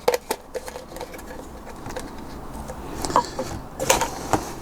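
Scattered light clicks and taps of small plastic kit parts, the shaker's sieve grids and packaging, being handled.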